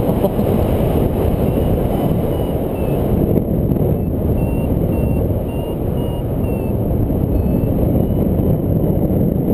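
Wind rushing over the microphone in paraglider flight, the loudest sound, with a variometer beeping in short tones about two a second, its pitch drifting slightly up and down. The beeping signals the glider climbing in lift.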